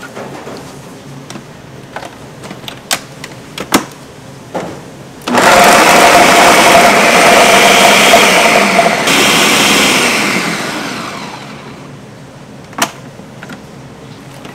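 A countertop blender starts abruptly about five seconds in and runs at full speed for about four seconds, chopping red pepper pieces into a coarse paste. It is then switched off and its motor winds down with a falling pitch. A few knocks and clicks come before it as the jar is handled, and one more knock comes near the end.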